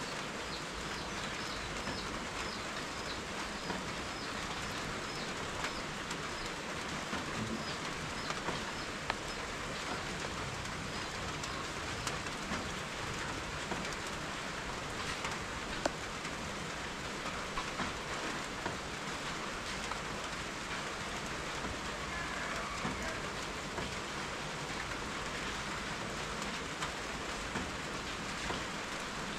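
Steady rain falling, with a few sharper drops or drips standing out now and then.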